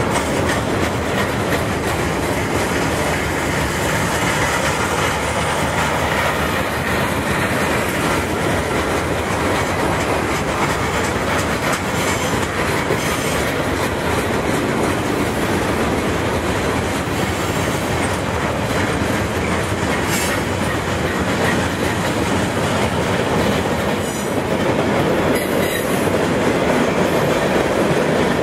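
Freight cars rolling past close by, their steel wheels running steadily over the rails with a clickety-clack, getting a little louder near the end as a string of coil cars passes.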